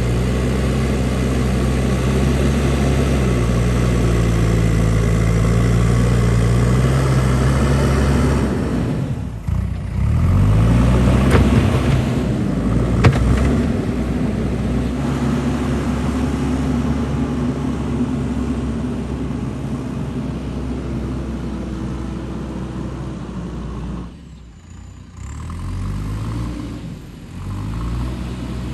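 JCB 3DX backhoe loader's diesel engine running, its pitch rising and falling as it works, with two brief drops in level, about nine seconds in and again near the end. A single sharp click about thirteen seconds in.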